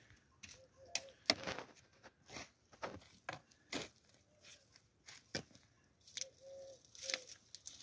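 Garden spade working loose, freshly dug soil: faint, irregular scrapes and knocks of the blade in the earth, a couple a second.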